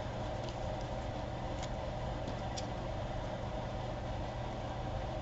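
Steady low background hum, like a fan or appliance running, with a couple of faint light ticks.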